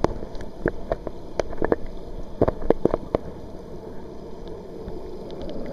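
Steady rush of waterfall water, with a cluster of sharp clicks in the first three seconds.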